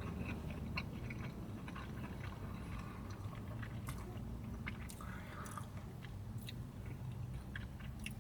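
A person chewing a bite of fried chicken nugget, with faint scattered soft clicks and smacks of the mouth.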